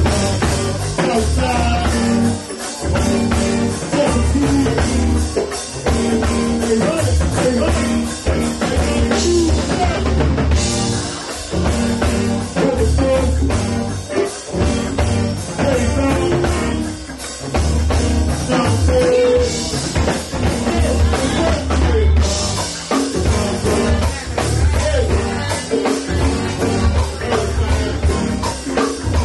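Live rock band playing: drum kit with cymbals, heavy low notes and electric guitar, with several vocalists singing into microphones.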